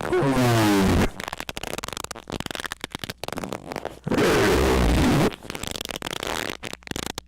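Two loud, heavily distorted squeaks, each about a second long, one near the start with a gliding pitch and one about four seconds in, with crackling clicks between them.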